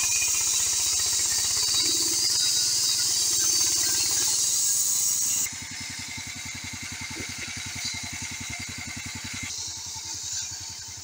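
Portable band sawmill cutting a log: its small petrol engine runs under load while the band blade hisses loudly through the wood. About five and a half seconds in the hiss stops abruptly, leaving the engine running on its own with its even firing pulses plain.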